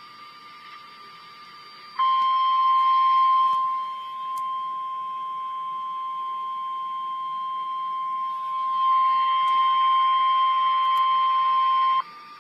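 NOAA Weather Radio emergency alert: faint radio hiss with a quiet steady whine, then about two seconds in the 1050 Hz warning alarm tone starts. It is a single loud steady tone lasting about ten seconds, and it cuts off sharply. It signals that an emergency message, here a tornado watch, follows.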